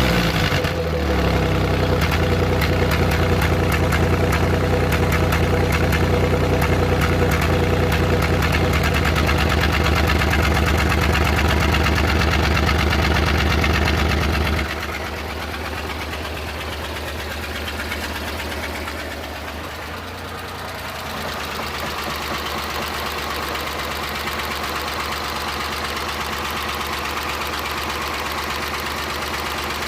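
Suzuki F6A three-cylinder engine with a random misfire, running steadily at raised revs with the throttle held, then dropping to a lower, quieter idle about halfway through.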